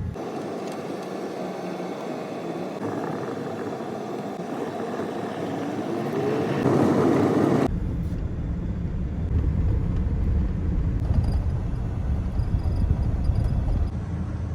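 Vehicle engines and road rumble as harvest machinery travels on the road. An engine rises in pitch about seven seconds in, then the sound changes abruptly to a steady, heavier low rumble.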